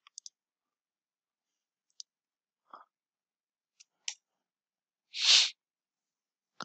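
A few scattered, soft computer mouse clicks, with one louder short breathy noise about five seconds in.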